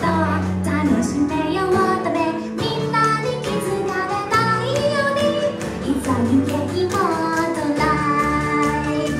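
A high-voiced singer performing an anime-song cover live over instrumental accompaniment, the vocal melody gliding over a steady bass line and chords.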